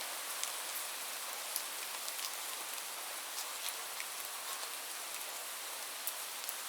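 Light rain falling steadily: an even hiss with scattered sharp ticks of single drops striking a surface.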